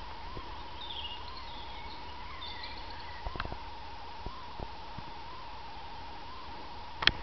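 Quiet outdoor ambience: a steady hum with a few faint high chirps in the first three seconds, a few soft knocks, and two sharp knocks near the end.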